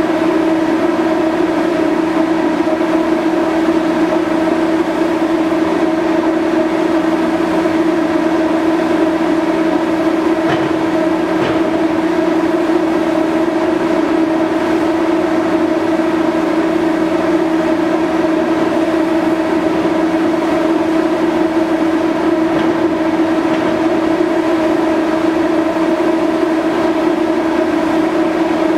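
Steady, loud drone of a docked car ferry's onboard machinery, an even hum with several fixed tones that does not change. A couple of faint knocks come about ten seconds in.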